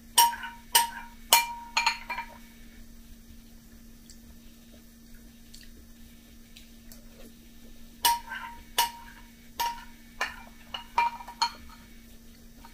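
Metal spoon clinking against a glass bowl while scooping cereal and milk. A few sharp ringing clinks come in the first two seconds, then another run of them from about eight seconds in.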